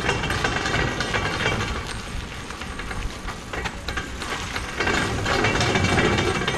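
A stripped 1973 Chevy Caprice being pushed by hand on its wheels over concrete, a rolling rumble with clanks and rattles from the body. It gets louder near the end as the car comes close.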